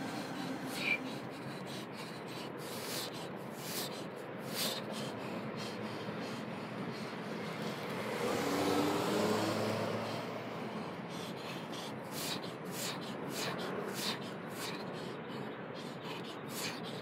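Steady outdoor background noise, with a vehicle passing about halfway through, its sound swelling and fading over a couple of seconds.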